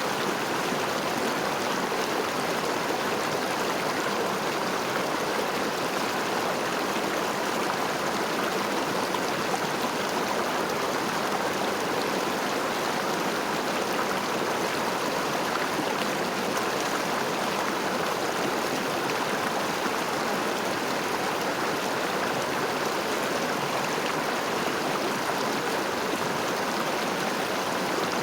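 A river's flowing water: a steady, unbroken rush.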